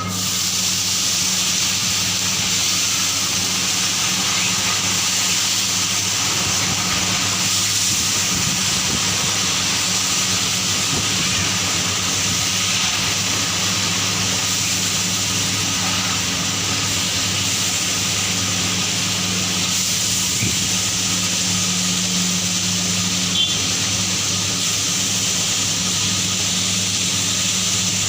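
Steady, unchanging hissing over a low hum.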